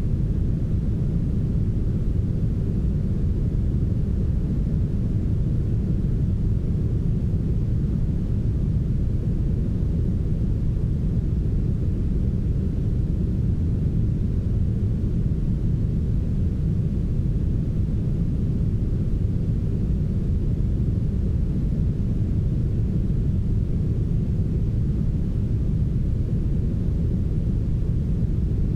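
Steady, smoothed brown noise: an even, deep rumbling hiss with most of its energy in the low range and little above, unchanging throughout.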